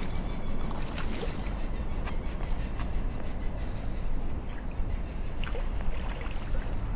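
Shallow water splashing and sloshing as a large hooked sea bass thrashes and rolls in the shallows, with scattered crackling bits of spray over a steady low rumble.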